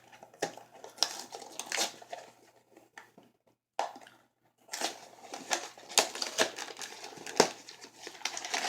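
Plastic candy packaging crinkling and rustling as it is handled, a run of irregular sharp crackles with a brief gap about three and a half seconds in.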